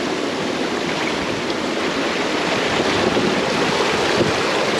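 Ocean surf washing against a rocky shore, a steady rush of water.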